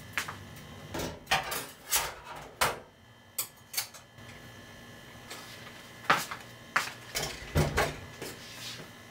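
Dishes and utensils clinking and knocking against each other and a stainless-steel sink, in irregular bursts with a short pause in the middle. There is a duller thud near the end.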